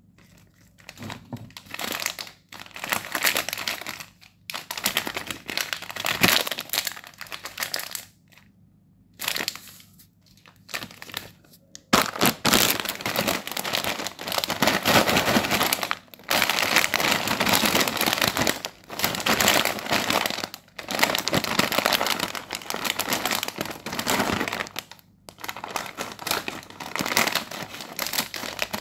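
Plastic snack packaging being handled and crinkled in irregular bursts: first an opened biscuit wrapper, then from about twelve seconds in a Kurkure chip bag squeezed and turned in the hands, crinkling almost without pause.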